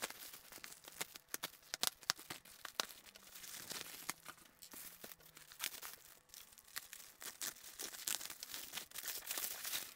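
Plastic mailer bag being torn open by hand and bubble wrap crinkling as a package is unwrapped: irregular sharp crackles and rustling, denser about four seconds in and again near the end.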